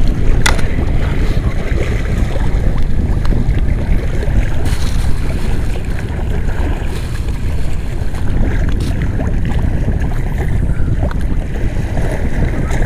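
Wind buffeting the camera's microphone in a steady low rumble, with sea water washing around the breakwater. A few light clicks, the sharpest about half a second in.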